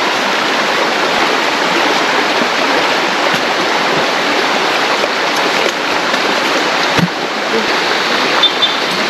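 River water rushing steadily, with a faint knock about seven seconds in.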